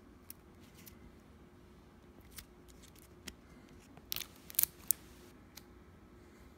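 Small, sharp plastic clicks and taps from an ink cartridge being handled and fitted, a few scattered at first and then a quick cluster of louder clicks about four seconds in.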